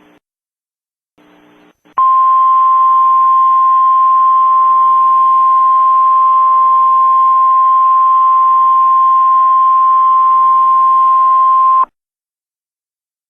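A loud, steady single-pitch alert tone comes in about two seconds in, holds for about ten seconds over a faint hiss, and cuts off abruptly. It is the Emergency Alert System attention signal that comes before the spoken alert message.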